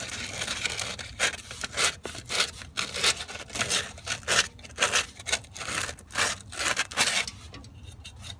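Sandpaper rubbing back and forth on a brass radiator fitting in quick, uneven strokes, cleaning the metal before it is soldered. The strokes stop about seven seconds in.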